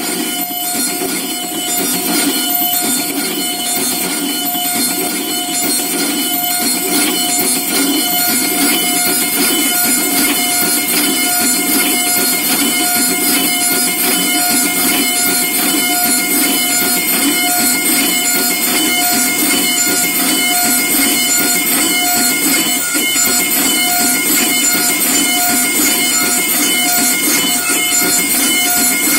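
Dental milling unit cutting a crown from a zirconia block: the spindle burs run under a water-coolant spray with a steady whine over a loud hiss.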